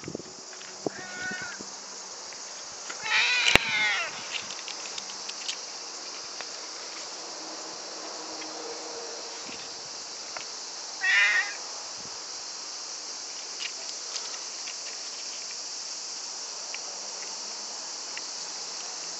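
Cat meowing: a short soft meow about a second in, then two loud drawn-out meows, about three seconds in and again about eleven seconds in. Insects shrill steadily behind them.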